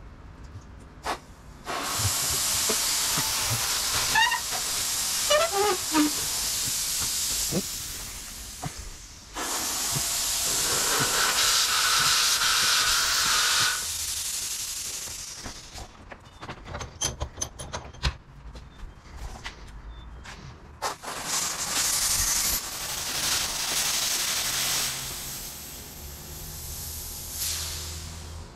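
Compressed air from a shop air hose hissing as it is blown into gum rubber tubing to float the rubber onto an AMF bowling pinsetter ball lift rod. It comes in three long bursts, with a short run of squeaks about four seconds in.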